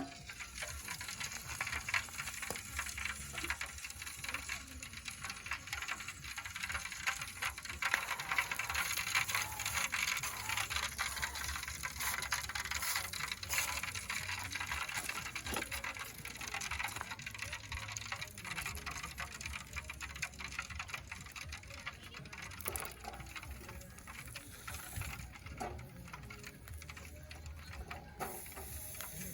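Food sizzling and crackling on a barbecue grill, a dense steady hiss full of fine pops.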